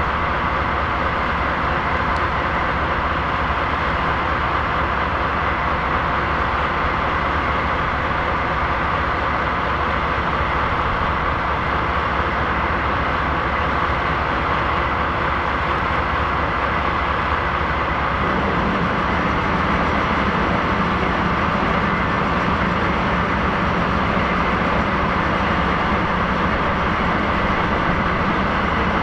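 A JR DD51 diesel-hydraulic locomotive's two V12 diesel engines idling steadily while it stands still. About two-thirds of the way through, the note shifts and a lower hum comes in, a little louder.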